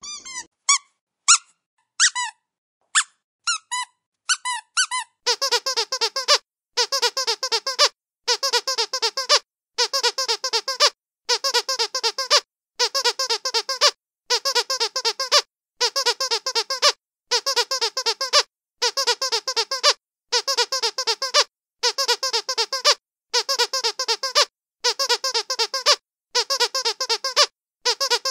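Squeaky dog toy being squeezed: a few separate squeaks at first, then from about five seconds in, quick runs of rapid squeaks repeating about once a second.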